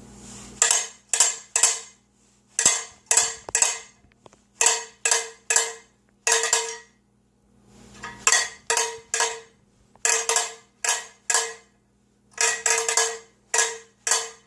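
A single handbell rung again and again at one pitch, in quick groups of three or four strokes about half a second apart, with short pauses between the groups; each stroke rings briefly and dies away.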